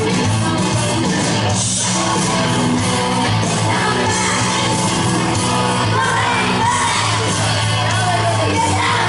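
Background music: a song with singing.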